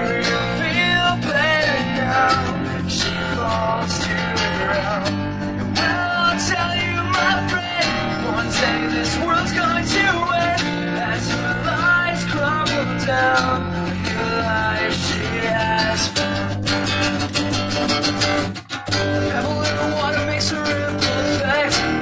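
Live band music: several guitars strummed and picked together in a rock song, with a momentary break in the sound about three-quarters of the way through.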